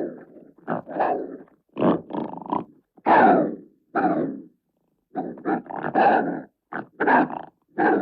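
Made-up monster sound effect built from pitched-down coyote calls mixed with cougar snarls and growls: a string of short, harsh snarls and barks, some in quick pairs, with the loudest about three seconds in.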